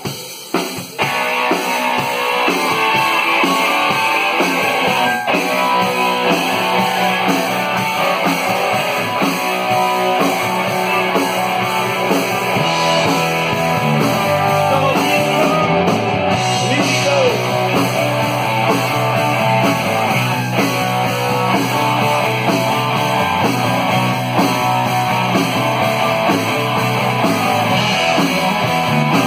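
Rock band playing live: two electric guitars, electric bass and drum kit, the full band coming in about a second in. The bass notes grow heavier about halfway through.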